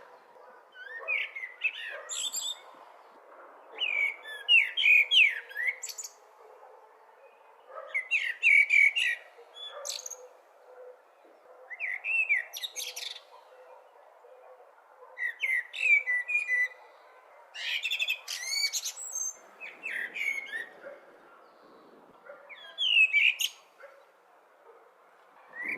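Blackbird singing: short warbled song phrases, each ending in high squeaky notes, repeated with pauses of a second or two between them.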